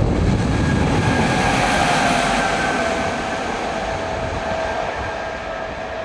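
DB Schenker Class 189 electric locomotive running light, without a train, passing and drawing away: wheel-on-rail rumble and rushing noise with a high whine over it, fading as it recedes.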